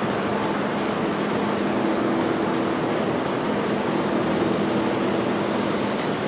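Steady street ambience: a constant wash of traffic noise with a low, even mechanical hum under it.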